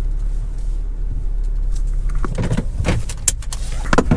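Car cabin noise: the steady low rumble of the car moving. From about two seconds in comes a run of sharp clicks and knocks, the loudest near the end.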